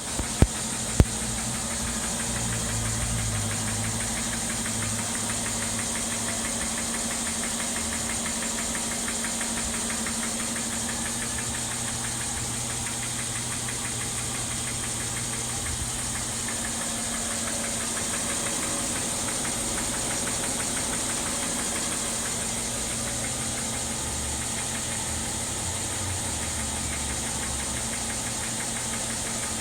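2012 Mercedes-Benz ML 350 engine idling steadily with a rapid, repetitive knock running through it. Two sharp clicks come in the first second.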